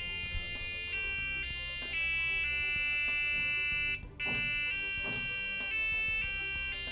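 A Christmas melody played by an EDU:BIT board with a micro:bit, as a run of electronic beeping notes with a buzzy tone. The notes are held about half a second each, with a brief gap about four seconds in.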